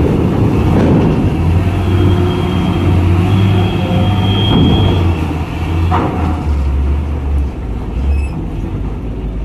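Heavy cargo truck's diesel engine running at low revs as the truck pulls slowly up a ferry loading ramp, its deep rumble swelling and easing, with a single knock about six seconds in.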